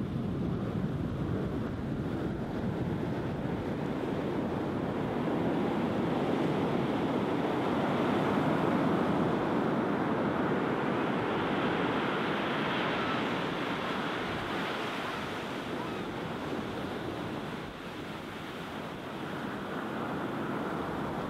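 Sea surf breaking and washing up the sand in foamy sheets, a steady rushing wash that swells to its loudest about nine seconds in and eases off briefly near the end.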